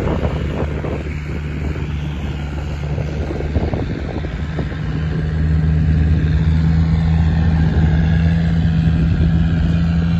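Off-road 4x4's engine running steadily, then pulling harder with its note rising a little about five seconds in.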